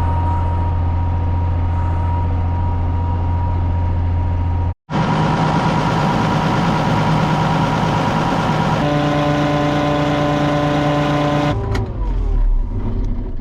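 Farm machinery engine running steadily across a few quick cuts. After the second cut it sounds fuller, its tones shift to a new steady pitch partway through, and it winds down near the end.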